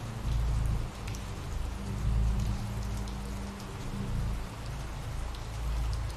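Steady rain falling, with small drop ticks through the hiss, over a low, steady drone that swells and fades.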